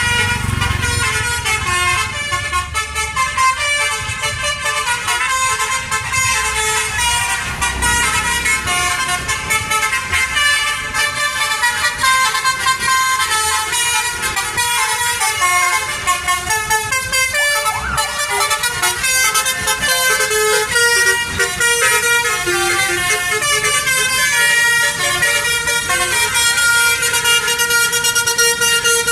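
Indonesian bus 'telolet' horns, multi-tone musical horns, playing continuously: several overlapping horn tunes whose pitches step quickly up and down, with a low engine rumble near the start.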